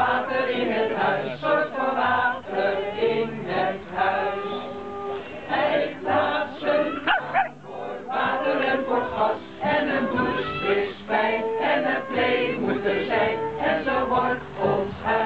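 A group of people singing together in Dutch, accompanied by acoustic guitar, with a small dog barking in between.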